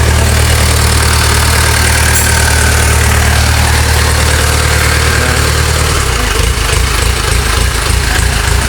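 Freshly rebuilt HH490 engine running after reassembly, with a steady low note that drops in pitch about six seconds in.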